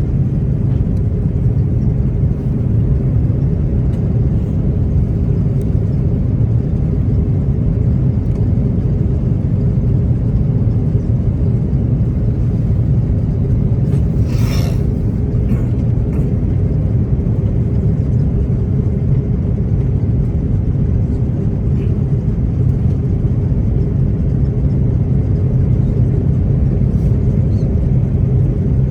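Steady cabin rumble of an Airbus A330-300 on approach, heard from a rear economy window seat: the Pratt & Whitney PW4168A turbofans and the airflow over the fuselage. About halfway through there is a brief short noise.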